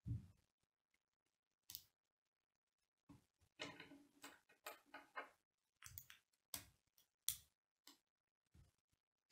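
Plastic K'nex rods and connectors clicking and snapping together as they are handled, in short separate clicks with a busier run of clicking between about three and five seconds in.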